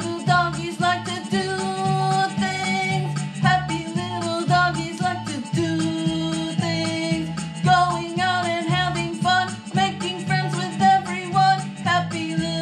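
Background music: a song with singing over a steady bass beat.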